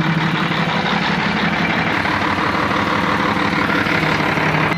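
Heavy truck diesel engine running steadily.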